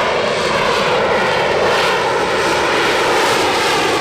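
Aircraft engine sound effect, a steady, loud engine rush for a toy fighter jet.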